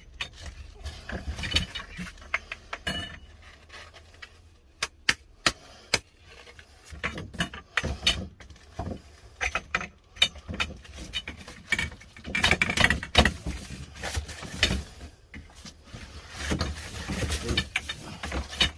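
Greenhouse staging parts being fitted together by hand: a string of sharp clicks, knocks and light rattles as frame pieces are slotted in, with stretches of handling and scraping noise.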